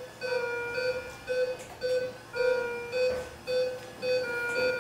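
Bedside patient monitor beeping about twice a second, a short pitched pulse tone in step with the simulated heart rate of 110, with a second, higher tone repeating alongside. It is monitoring a simulated patient with low oxygen saturation, at 85%.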